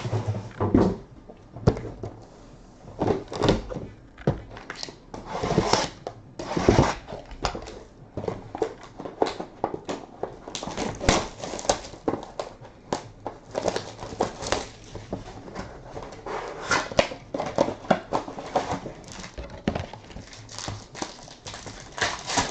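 Trading-card packaging being opened by hand: irregular crinkling and rustling of plastic wrap and cardboard, with now and then a light knock.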